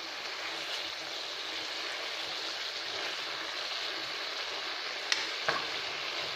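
Whole masala-coated brinjals sizzling in oil in a kadai, a steady frying hiss. A metal spatula clicks twice against the pan about five seconds in.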